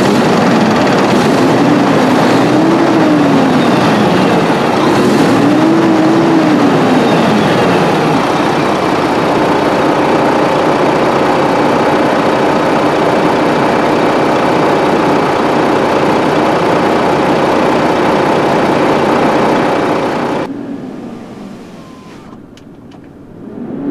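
2023 KAMAZ 54901 truck's diesel engine revved twice, each time rising and falling in pitch, then idling steadily. About twenty seconds in it turns much quieter and muffled, heard from inside the cab.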